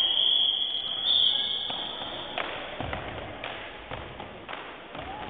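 A long high whistle blast, then a drill squad's feet stomping in unison in a marching rhythm, about two stamps a second.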